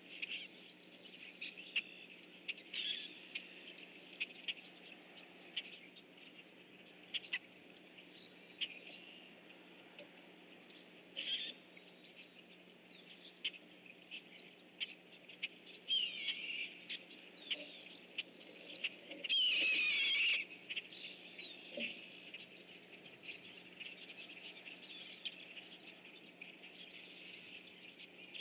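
A flock of blackbirds calling: a steady chatter of short, high chips and calls, with a loud rushing burst about a second long around two-thirds of the way through, over a faint steady low hum.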